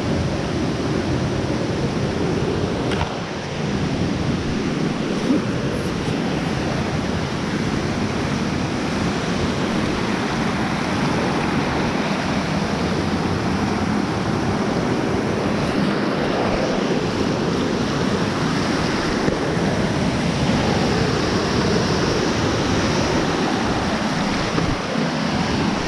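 Waterfall: falling water rushing in a steady, unbroken wash of noise.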